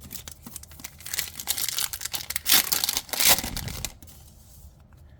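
A trading card booster pack's wrapper being crinkled and torn open by hand, from about a second in until about four seconds, loudest near three seconds, followed by quieter handling of the cards.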